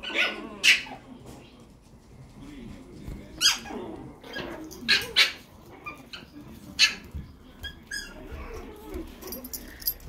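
Chihuahua and toy poodle puppies yipping and squealing in short, high-pitched cries while they play-fight, one yelp falling in pitch about three and a half seconds in.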